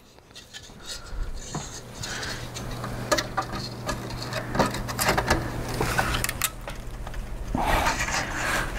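Irregular clicks, knocks and rubbing from hands plugging cables into an open desktop computer's sheet-metal case, with a denser stretch of rustling near the end.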